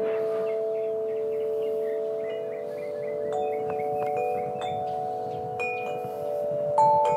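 Wind chimes ringing: a few metal tubes are struck now and then, and their clear tones hang on for several seconds and overlap. A new, louder, higher tone is struck near the end.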